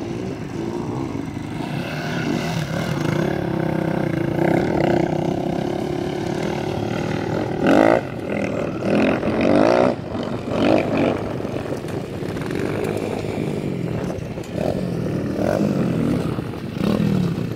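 Pit bike engines revving on a dirt track: small single-cylinder engines rising and falling in pitch as the riders open and close the throttle. Loudest as one bike passes close about eight seconds in, with another close engine near the end.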